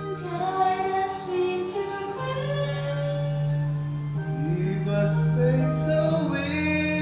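Singing into a condenser microphone along to a karaoke-style backing track, with long held bass notes under a sung melody.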